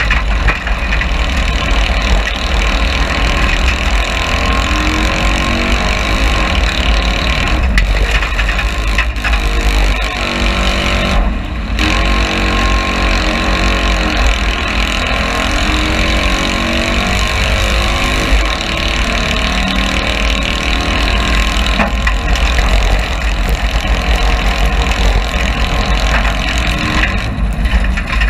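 Citroën 2CV cross car's air-cooled flat-twin engine racing hard, heard from inside the stripped cabin, its pitch rising and falling with throttle and gear changes over a steady low rumble. The sound briefly dips about eleven seconds in.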